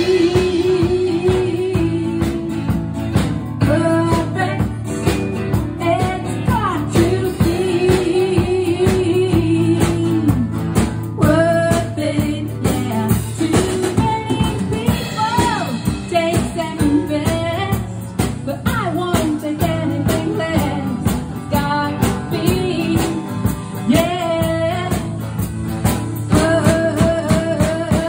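A live band playing a pop-rock song: electric guitar and drum kit under a wavering melodic lead line.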